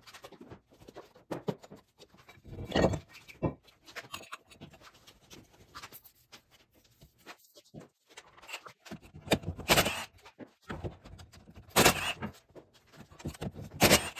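Irregular metallic clinks and clanks of hand tools and brake parts as the front brake rotor is taken off the wheel hub, with a few louder clanks in the second half.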